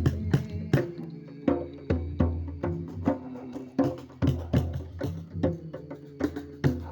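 Devotional music: sharp percussion strikes, about two to three a second in a loose rhythm, over steady sustained tones.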